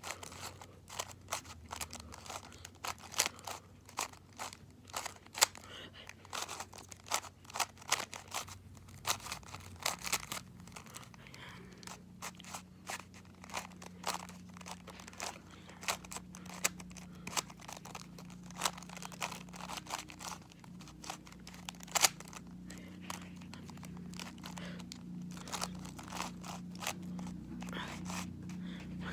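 Rubik's Cube being turned rapidly during a speed solve: quick, irregular runs of plastic clicks and clacks as the layers snap round, thinning out near the end. A faint low hum sits underneath from about a third of the way in.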